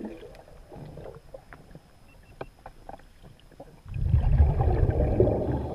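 Scuba diver's exhaled regulator bubbles heard underwater: a loud, low, bubbling rumble that starts about four seconds in, after a quieter stretch with only faint scattered clicks.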